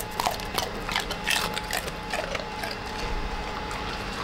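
A golden retriever chewing a crisp sweet potato chip: a run of irregular crunches, densest in the first two seconds and then thinning out.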